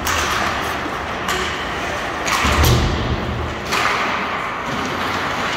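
Ice hockey play on a rink: skates scraping the ice in short hissing bursts and sticks clattering off a faceoff, with a heavy thump about two and a half seconds in.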